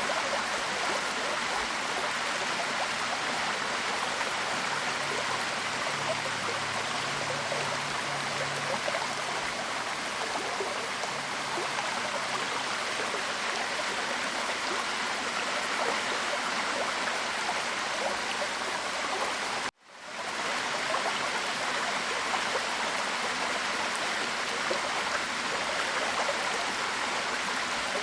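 Waterfall: a steady rush of falling water. Near the two-thirds mark it cuts out abruptly and fades back in over about a second.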